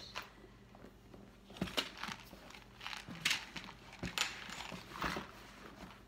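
A felt bag organizer being fitted into a large leather tote: brushing and rustling with four or five short scrapes and knocks spaced about a second apart.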